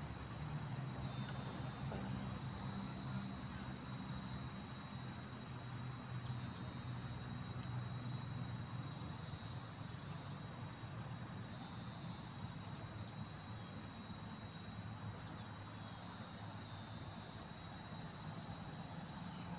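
Insects chirring in one steady, high-pitched drone, with a faint low hum underneath in the first half.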